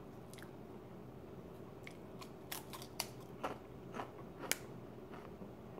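Wavy potato chip crunching as it is chewed: a handful of short, sharp crunches, most of them between about two and a half and four and a half seconds in.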